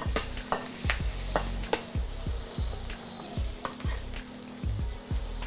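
Shrimp searing in butter in a stainless steel wok, sizzling steadily, while a metal ladle stirs them with repeated irregular scrapes and clicks against the pan.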